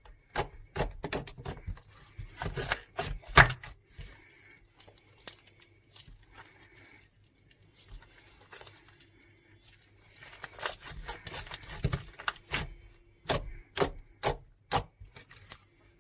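Irregular sharp taps and clicks of small objects being handled on a hard surface, with a few light rubbing sounds. The taps come in flurries, thinning out in the middle and picking up again near the end.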